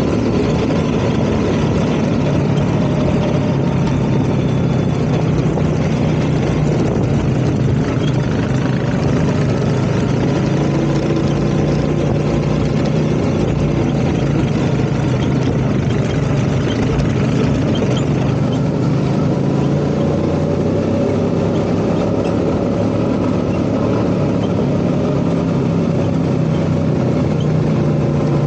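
ATV engine running steadily while riding, its pitch drifting gently up and down with the throttle, over a constant rushing noise.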